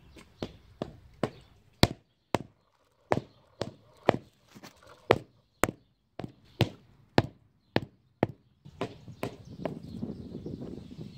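A mallet striking concrete pavers, sharp knocks about two a second, tapping the pavers so the polymeric sand settles into the joints. Near the end a push broom sweeps across the pavers.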